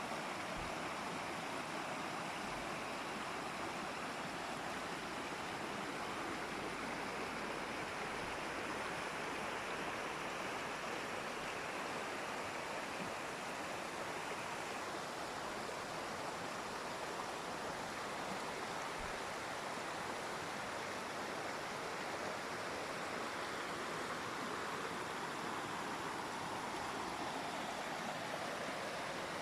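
Waterfall: a steady rush of falling water, an even unbroken noise that shifts slightly in tone partway through.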